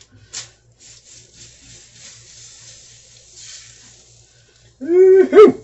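A utensil scrapes faintly at leftover melted cheese crust in a nonstick skillet, then near the end a dog gives two loud barks, the first longer than the second.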